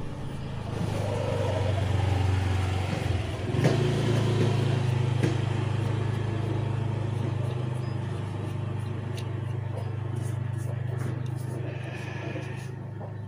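An engine running steadily with a low hum, louder in the first few seconds, with two sharp clicks a few seconds in.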